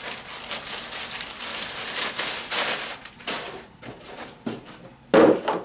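Clear plastic bag crinkling and rustling as a boxed electronic unit is pulled out of it, dense at first and then thinning out, with one short, louder burst of noise near the end.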